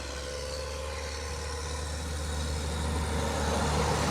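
Tractor engine running steadily with a bale processor in tow, growing louder as it draws closer.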